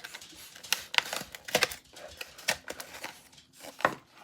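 Mystery-box packaging and a small vinyl figure being handled: a string of irregular crinkles and sharp clicks.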